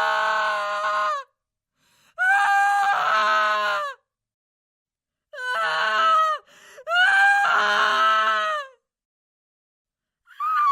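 Women's horror screams, one after another: high-pitched screams a second or two long, each cut off into silence before the next. Five are heard, the last starting near the end.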